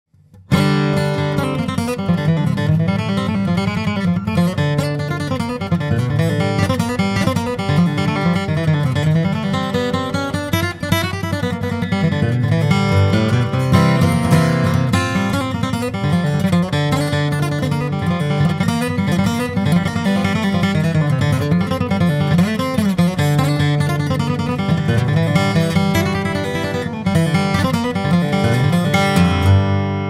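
Solo acoustic guitar flatpicked in bluegrass style, a steady stream of picked single notes and chords: a Yamaha FG9 dreadnought with a solid Adirondack spruce top and Indian rosewood back and sides. Playing starts about half a second in, and the last notes ring out at the very end.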